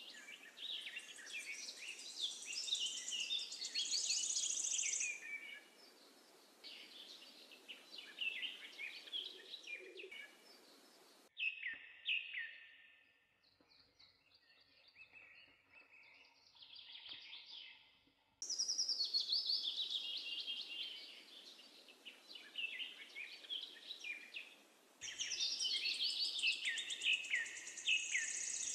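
Birds chirping and singing in a busy chorus of quick, high trills. The birdsong cuts out abruptly about 11 seconds in, leaving faint scattered chirps, and comes back just as suddenly about 18 seconds in.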